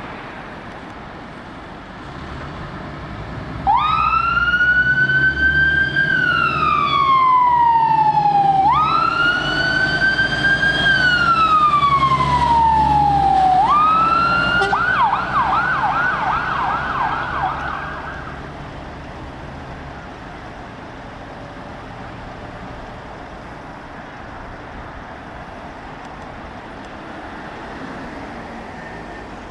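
Fire engine's electronic siren giving two long wails, each a quick rise and a slower fall, then switching to a fast yelp for a few seconds before cutting off, with the vehicle's engine rumbling underneath. After it stops, only steady traffic noise remains.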